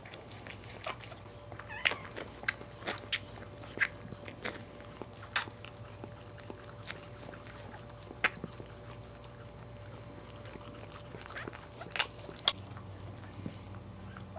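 Cairn terrier mother licking her wet, just-born puppy: a string of short, wet licking and smacking sounds at irregular intervals, over a faint steady hum.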